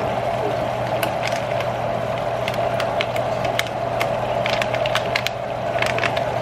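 Ground meat and diced onions sizzling in an enamelled cast-iron pot, with irregular crackles and pops over a steady hum.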